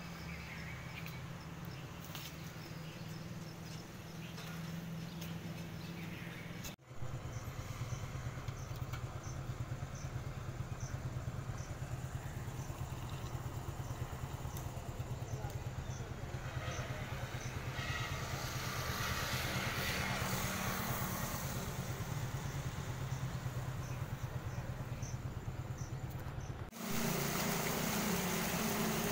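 A vehicle's engine running steadily: a low hum with road noise. It breaks off abruptly about seven seconds in and again near the end, where clips are joined.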